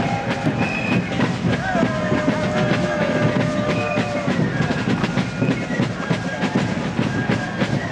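Drums of a fife and drum corps playing a fast, clattering marching beat, with a few held high notes over it.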